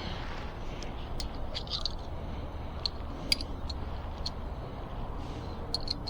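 Scattered light clicks and taps of hand tools and small brake parts being handled during a brake pad change, the sharpest about three seconds in, over a steady low background hum.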